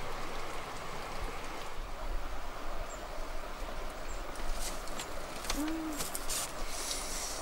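Steady rural outdoor ambience with a light hiss. Light rustles and creaks from the bamboo slat platform come as someone shifts and sits up on it. About five and a half seconds in there is one short low call that rises and falls in pitch.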